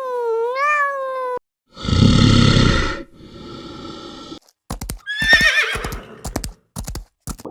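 Animal calls: a drawn-out pitched call that ends about a second and a half in, then a loud noisy blast and a trembling, wavering whinny amid a run of sharp knocks, typical of a horse.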